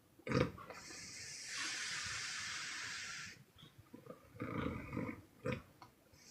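A sleeping woman snoring: a short loud snore, then a long hissing, puffing breath out lasting about two seconds, then another rough snore and a short puff near the end.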